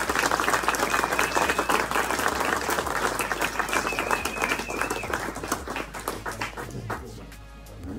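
Audience applauding, the clapping thinning out and dying away about seven seconds in.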